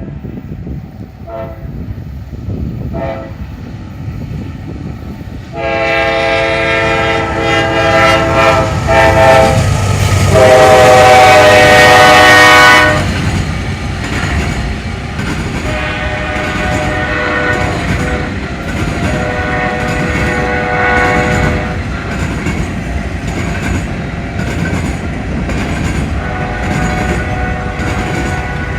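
CSX GE AC44/ES44 diesel locomotives working at full throttle (notch 8) with a Nathan K5LA five-chime horn sounding two long blasts, the second the loudest, as the train nears. After the horn cuts off, the locomotives' rumble gives way to the empty grain hoppers rolling past, their wheels clicking over rail joints in an even rhythm.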